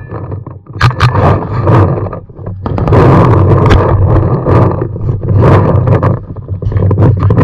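Paintball markers firing, heard as many sharp cracking pops in irregular quick bursts. A loud rushing noise fills the middle few seconds.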